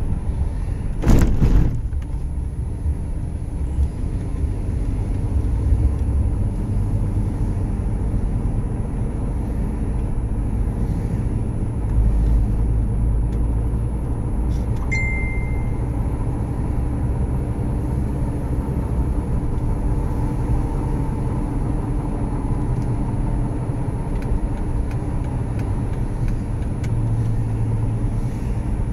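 Steady road and engine rumble heard inside a moving car's cabin, with a thump about a second in and a short high beep about halfway through.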